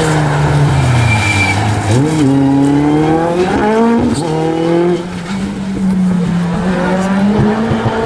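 Rally car engine under hard driving: revs fall away over the first second or so, then climb steeply under acceleration, break at a gear change about four seconds in, and pull on with revs slowly rising. A brief tyre squeal sounds about a second in.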